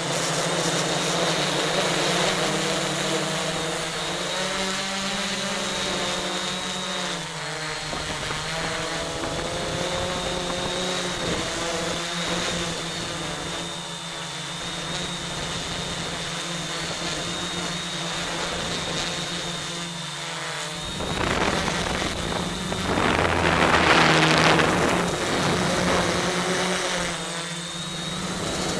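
Quadcopter's electric motors and propellers buzzing, heard from a camera mounted on the craft, their pitch wavering up and down as the throttle changes. A louder surge of noise comes about three-quarters of the way through.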